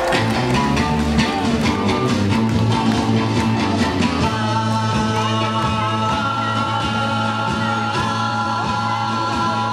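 Loud music with a steady beat, accompanying a stage dance number.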